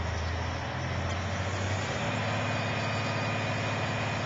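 Crane's diesel engine running steadily, its pitch stepping up to a slightly higher speed about two seconds in.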